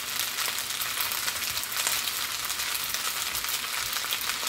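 Fried rice with peas, carrots, onion and soy sauce sizzling steadily in a hot pan, with a light crackle.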